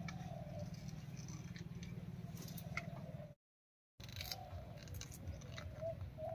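Taro flower stalks being sliced on a boti, a curved blade fixed upright on a base: faint crisp cuts and small clicks. The sound drops out briefly a little past three seconds in.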